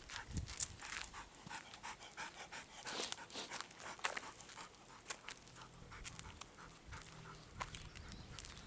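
Golden retriever panting, a quick run of short, noisy breaths.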